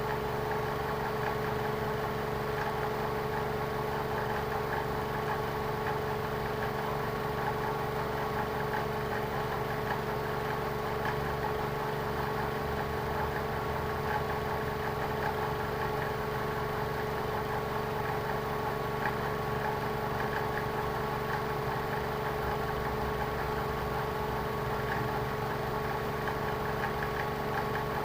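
Lexus car engine idling steadily, an even hum with a few steady tones and no change in speed.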